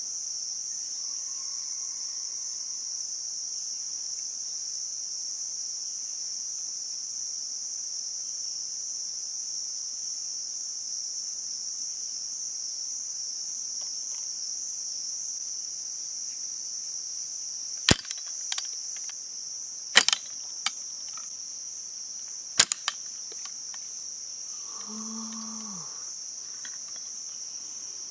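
Steady high-pitched drone of insects, with a few sharp clicks of bamboo pieces knocking and snapping together as a bamboo spring trap is fitted, in the second half. A short low hum comes near the end.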